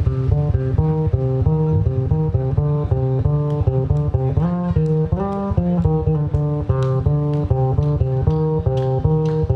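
Live instrumental band music: an electric bass guitar plays a steady, repeating line under plucked guitar notes. Roughly halfway through, the notes slide in pitch, and light percussion taps come in during the second half.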